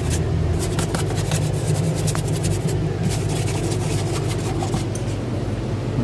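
Steady low hum of a running R600a refrigerator compressor, the freezer cooling and frosting up again after a leak repair. Many short scratchy rubbing and handling noises as a hand brushes the frosted, sandpaper-rough freezer wall.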